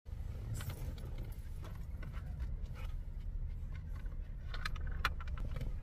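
Scattered light clicks and knocks of hands handling things in a car's cabin, with a quick cluster of sharper clicks about five seconds in, over a steady low rumble.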